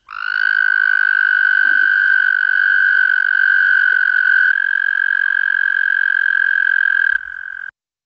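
Male American toad giving its long, steady, high musical trill, the breeding call. It drops in loudness about seven seconds in and stops shortly after.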